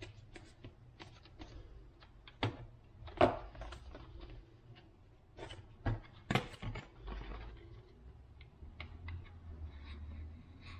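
Scattered light clicks, taps and knocks of hands working Coroplast parts and tools at a workbench, with two louder knocks about three and six seconds in.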